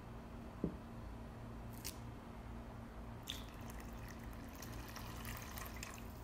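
Warm low-fat milk poured in a stream into a bowl of flour and olive oil: a faint trickling splash from about three seconds in, over a steady low hum. A short sharp knock comes under a second in and a click near two seconds.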